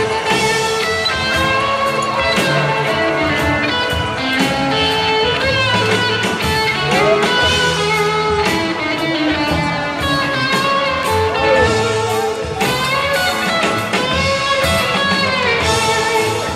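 Background music led by guitar, with bending notes over a steady bass line.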